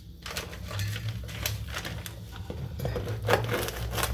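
Bread knife sawing through a crusty French baguette: a run of irregular crisp crunching strokes through the crust, the strongest a little past three seconds in.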